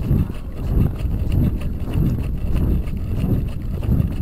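Wind buffeting the microphone, with low thumps recurring about every half second to second.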